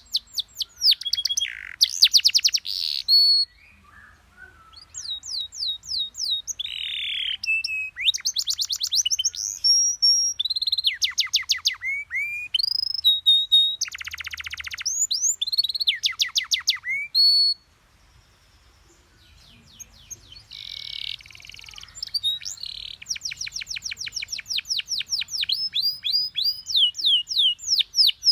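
Domestic canary singing: fast trills of rapidly repeated high notes and rolls mixed with short whistled notes, broken by two brief pauses.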